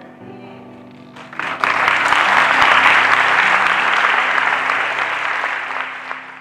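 Congregation applauding, the clapping breaking out about a second in and holding strong, over soft instrumental music with held chords.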